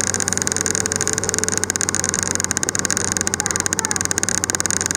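A passenger train car in motion, heard from inside the coach: a steady low hum with a high hiss and a fast, even rattle.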